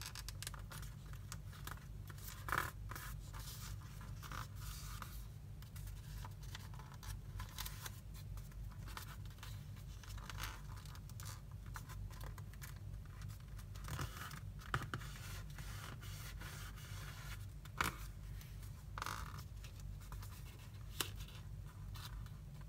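A sheet of paper being folded and creased by hand into a paper airplane: irregular rustling, scraping and crinkling of the paper, with a few louder sharp snaps scattered through.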